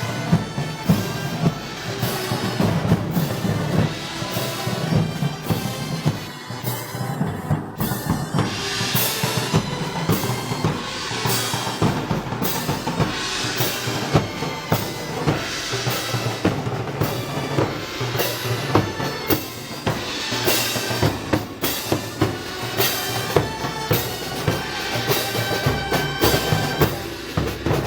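Live Moros y Cristianos festival band music, led by heavy drumming: bass drum and snare beat out a steady march rhythm, with snare rolls.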